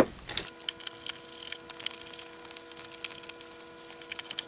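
Irregular sharp clicks and creaks of plastic and rubber as the rubber corner bumpers are pried off the plastic case of a handheld oscilloscope. The clicks bunch up in the first couple of seconds and again near the end.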